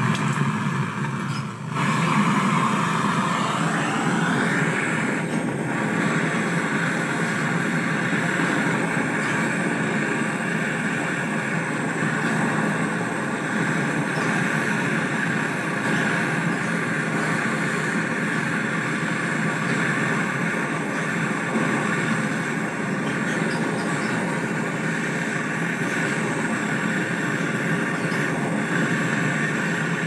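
Portable butane canister torch burning with a steady rushing hiss, its flame heating the joint of a refrigerator's copper filter drier that is being replaced. The flame comes on at the start, falters briefly, then burns evenly.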